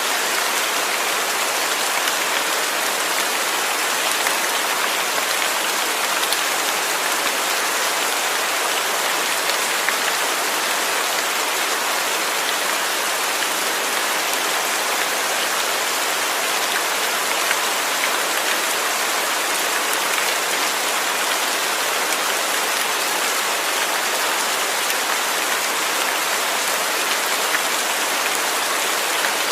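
Steady rain falling and pattering on a surface, an even hiss with no thunder or breaks.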